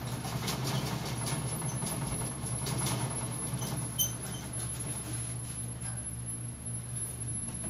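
Dry wood-shavings bedding rustling and crackling under a pet mouse as it shifts about, over a steady low hum. One sharp click about four seconds in.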